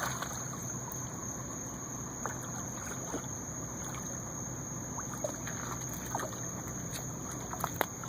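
Steady outdoor background hiss with a constant thin high-pitched whine and faint low hum, broken by a few small clicks and taps near the end.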